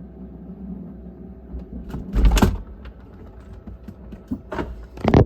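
Refrigerator running with a steady low hum, while its door is handled: a loud knock and rubbing about two seconds in, and two more near the end.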